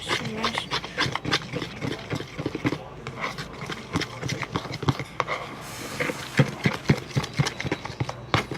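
A spoon stirring a sticky mix of white glue, toothpaste and paint in a container, with many irregular clicks and scrapes of the spoon against the sides.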